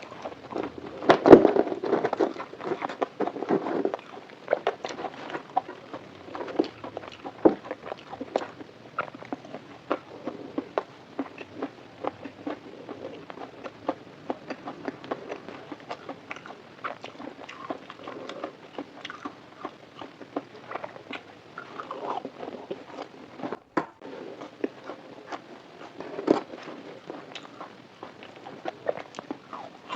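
Close-up eating sounds: biting and chewing fried food, a steady run of short moist clicks and smacks that is busiest in the first few seconds.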